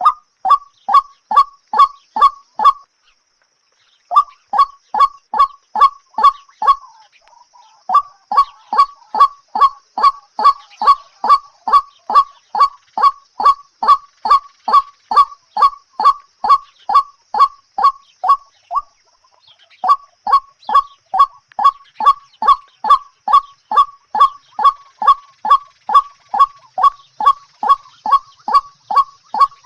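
A short, honking bird call repeated very evenly, about two and a half times a second, with brief pauses about three, seven and nineteen seconds in.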